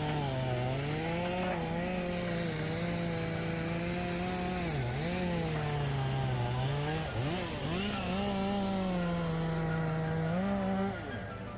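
Chainsaw running at high revs while cutting wood, its pitch dipping briefly several times as it loads up in the cut. It stops near the end.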